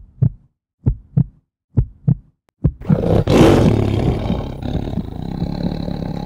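Intro sound effects: deep heartbeat-like double thumps, about one pair a second, then a loud rush of noise with a deep rumble beneath swells up about three seconds in and carries on steadily.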